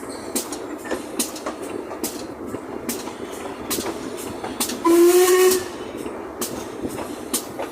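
GWR 5101-class 2-6-2T steam tank locomotive 4144 working along with sharp exhaust beats over a steady steam hiss. A single short steam whistle blast sounds about five seconds in.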